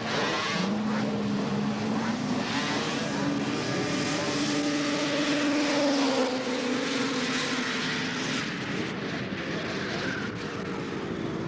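Racing snowmobile's two-stroke engine at full throttle on a grass drag pass. Its pitch climbs over the first few seconds, holds high, then grows a little fainter near the end.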